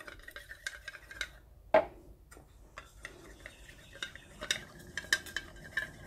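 A thin wooden stick stirring silicone through acrylic paint in a small cup: faint scraping and clicking against the cup's sides, with one louder knock just under two seconds in.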